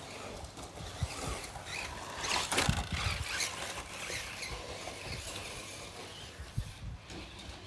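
Stock Tamiya RC cars with brushed 540 motors, running on 2S LiPo over dirt and grass: high motor and gear whine with tyres scrabbling. It is loudest about two and a half seconds in, as one car passes close.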